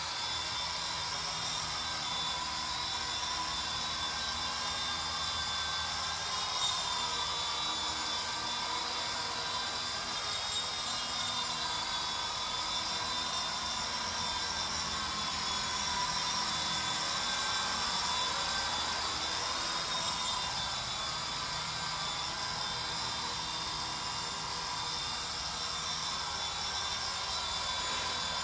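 WLtoys V912 RC helicopter in flight: a steady high electric whine from its motors and spinning rotors, wavering slightly in pitch as the throttle changes.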